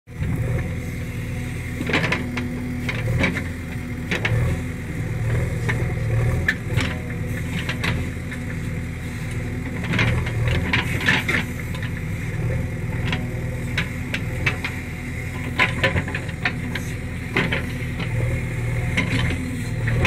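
JCB 3DX backhoe loader's diesel engine running steadily under load while the backhoe digs, with irregular scraping clatters as the bucket teeth break into dry, stony soil.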